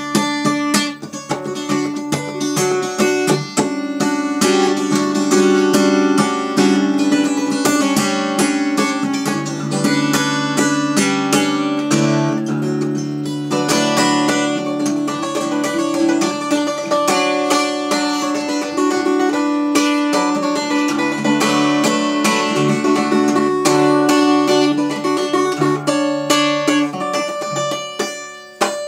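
Solo acoustic guitar in open C tuning, played with fast picking and strumming while low notes ring on steadily beneath the melody.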